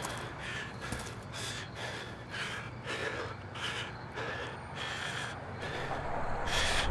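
A man panting hard, short rasping breaths in and out about twice a second. A low rumble comes up near the end.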